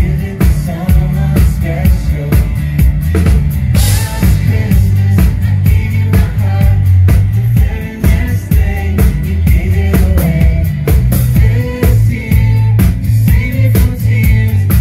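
Live band playing an instrumental passage with a steady drum-kit beat and bass.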